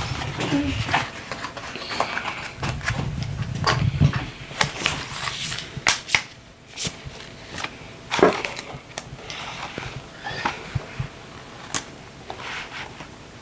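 Sticker sheets and paper crinkling and rustling, with irregular small clicks and taps as stickers are peeled off and pressed onto a sketchbook page.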